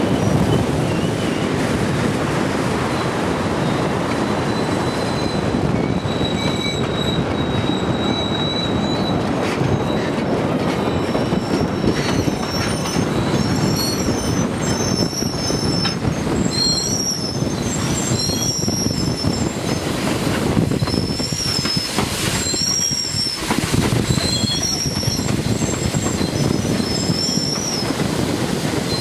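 Passenger coaches of a steam train rolling past with a steady rumble, their wheels squealing in many short, wavering high-pitched screeches that grow more frequent from about the middle on.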